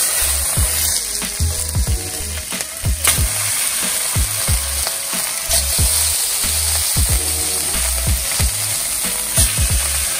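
Boiled whole potatoes frying in melted butter in a pan, a steady sizzle, with repeated low thumps underneath.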